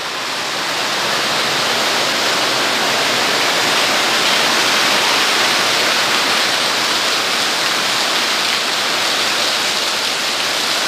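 Water falling in a steady, heavy rush, growing louder over the first couple of seconds.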